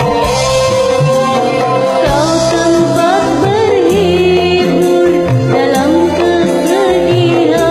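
A woman sings a wavering, ornamented melody over a karaoke backing track with pulsing bass.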